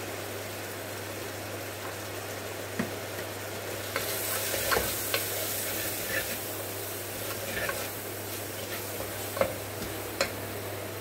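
Onion-tomato masala with ground spices sizzling in a pressure cooker, stirred with a wooden spatula; from about four seconds in the sizzle grows louder and the spatula scrapes and knocks against the pot several times. A steady low hum runs underneath.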